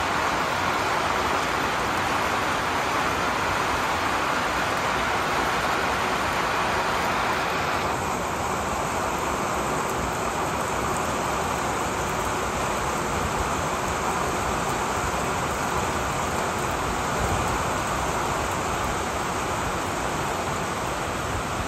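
Steady rain falling on trees and foliage, an even dense hiss; the higher part of the hiss drops off a little about eight seconds in.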